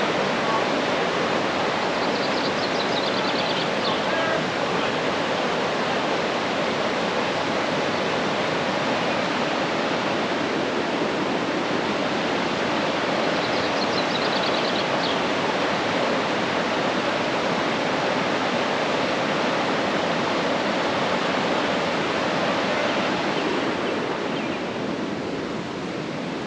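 Whitewater rapids of the Kaituna River rushing steadily, easing a little near the end. Twice a faint, high, quick twittering sounds over the rush.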